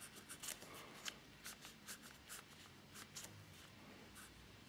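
Ballpoint pen scratching on lined notepad paper in short, faint, irregular strokes while sketching.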